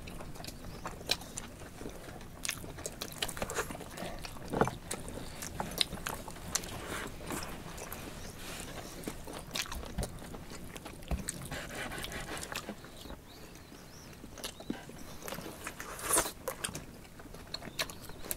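Close-miked eating: people chewing and biting mutton and potatoes pulled off the bone by hand, with many small scattered clicks and wet mouth sounds.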